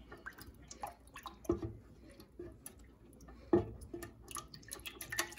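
A utensil stirring a raw egg into water, oil and honey in a bread machine's pan to break it up: soft wet clicks and taps, with two louder taps about one and a half and three and a half seconds in.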